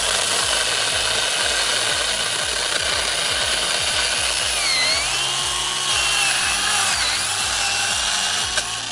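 Mini cordless chainsaw cutting through a thick, wet branch. Its high motor whine dips in pitch twice, about five and seven seconds in, as the chain bogs into the wood, and the saw winds down just before the end.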